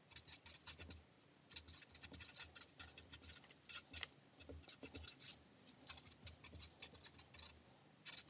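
Sharpie fine-point marker writing on paper: a run of faint, quick scratching strokes of the felt tip on the page, with short pauses between words.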